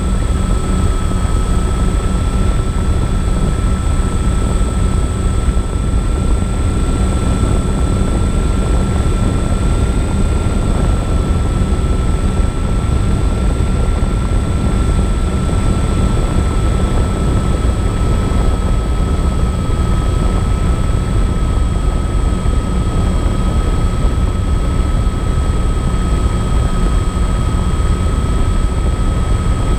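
MyTwinDream FPV plane's twin electric motors and propellers whining at a steady cruising throttle, heard from the onboard GoPro under a heavy rumble of wind on its microphone. The motor pitch holds almost level throughout.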